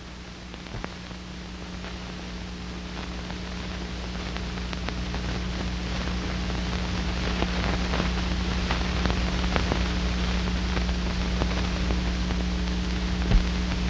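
Steady electrical hum under an even hiss with scattered faint crackles, slowly growing louder: the background noise of an old film soundtrack transferred to tape.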